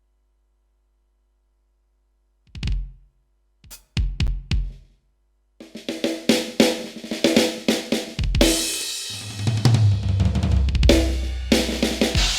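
Roland TD-15KV electronic drum kit: silence, then a few single drum hits, then a steady groove of kick, snare, hi-hat and cymbals from about halfway through.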